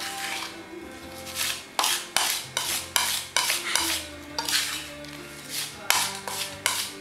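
Flat of a Hattori kitchen knife scraping and pressing salted minced garlic against a wooden cutting board, mashing it into a paste, in repeated strokes about twice a second. Faint background music plays underneath.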